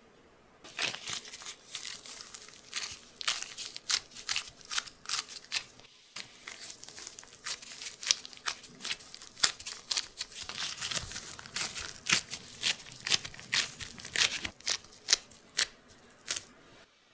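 Gloved fingers pressing and patting soft cookie dough flat in a baking dish: a quick, irregular run of sharp little crackles and sticky squishes, with a short break about six seconds in.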